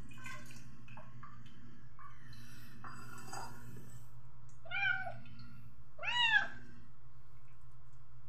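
A young cat meowing twice, two short calls that rise and fall in pitch, the second louder and longer, over a steady low hum.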